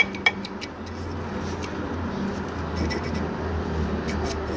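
Two sharp clicks right at the start and a few faint ticks later, from handling the 2JZ-GTE's crank pulley, over a steady low mechanical hum.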